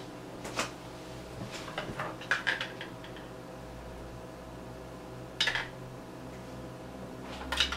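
A spoon clinking and scraping against a tub of crema and a plate as crema is spooned out: a cluster of small clinks in the first three seconds, then two sharper clinks about five and a half and seven and a half seconds in. A faint steady hum runs underneath.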